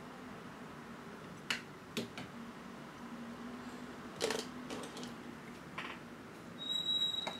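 A few sparse, light clicks and taps, the loudest about four seconds in, over a faint steady hum.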